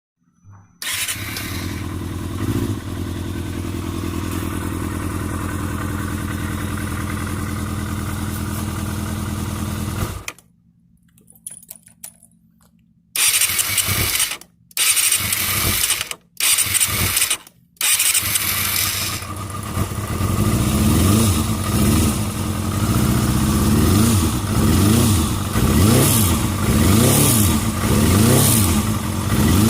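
Kawasaki Balius II's 250 cc inline-four engine idling steadily; this is the engine whose abnormal noise is being checked. About ten seconds in it goes quiet, then comes back in a few short, abruptly chopped stretches. In the last third it is blipped, revving up and down about once a second.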